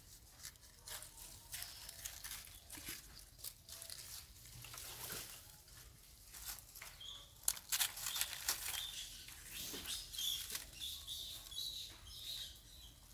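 Dry leaves and twigs rustling and crackling irregularly as baby monkeys scramble and play over them, busier in the second half, with a few short high chirps.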